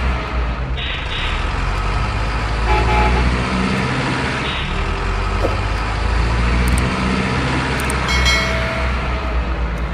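A steady low engine rumble, like a truck engine running, with a few short high tones about three seconds in and again near the end.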